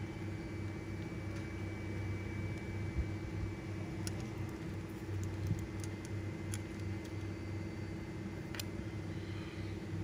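A handful of light metal clicks as needle-nose pliers grip and wrap thin steel wire around looping pliers, one sharper near the end. Under them runs a steady low machine hum.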